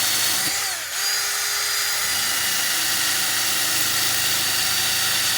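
Small handheld power tool spinning a cleaning attachment, grinding hard-water deposits off a faucet fitting. It runs at a steady high whine that sags briefly just before a second in, as if loaded, then picks back up.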